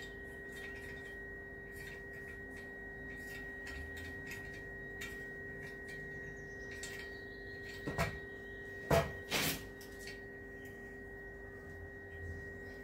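Hand tap turned in a T-handle tap wrench, cutting a thread in a cast-iron manifold flange: small metallic clicks and creaks, with a few louder clicks about eight and nine seconds in. A steady high background hum runs underneath.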